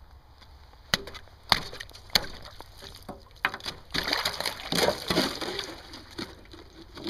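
Ice on a frozen water trough being broken with a wooden pole: three sharp knocks about a second in, another a little later, then a spell of cracking and splashing as the ice breaks up into the water beneath.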